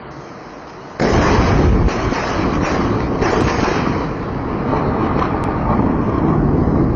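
Close lightning strike: a sudden, very loud thunderclap about a second in, followed by continuous heavy rumbling that stays loud over the rain.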